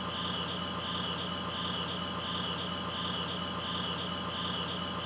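Insects chirping in an even, pulsing rhythm, about two pulses a second, over a steady low hum.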